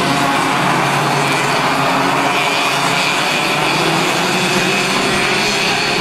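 A pack of KF2 racing karts' 125 cc two-stroke engines running together at race pace, many engines overlapping in one steady, continuous drone.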